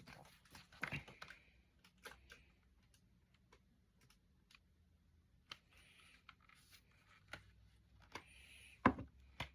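Quiet handling noises of unboxed items, likely CD cases and packaging: scattered light clicks and soft rustles, with a louder knock near the end.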